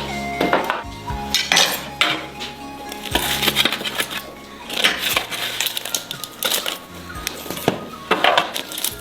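Background music with a steady bass line, with short sharp clinks and crunches over it every second or so.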